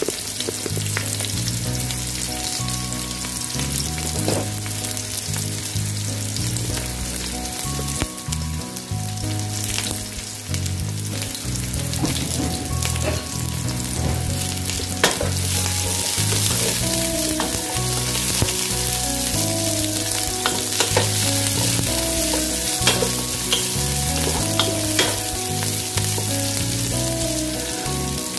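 Sliced onions sizzling in hot cooking oil in a pot. In the second half a wooden spatula stirs them, giving a few light clicks and scrapes against the pan.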